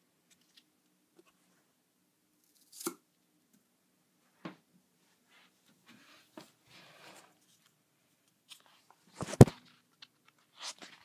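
Handling noise from a foam rocket toy held close to the camera: scattered rustles and light knocks, then one loud thump about nine seconds in.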